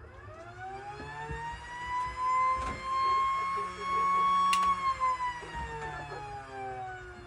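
Warning siren sounding one wail: the pitch rises over about two seconds, holds near the top, then slowly winds down from about five seconds in.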